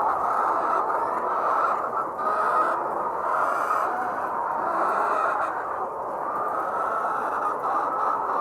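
A large flock of layer hens clucking and calling all at once, a dense, steady din of many overlapping bird voices.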